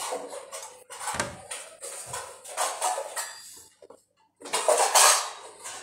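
Dishes and cutlery clinking and clattering at a meal table in a run of short knocks, with a brief pause about four seconds in and the loudest clatter just after it.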